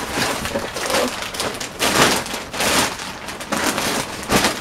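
Packaging rustling and crinkling as items are handled and pulled out of a cardboard shipping box, in several loud bursts, the loudest about two seconds in.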